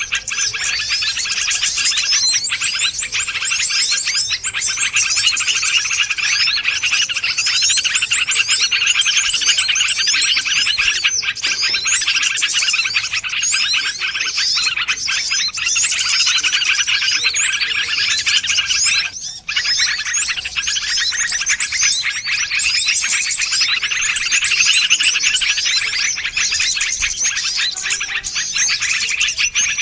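Bird-luring (pikat) call track of many small wild birds: dense, continuous high chirping and twittering, briefly breaking off about nineteen seconds in.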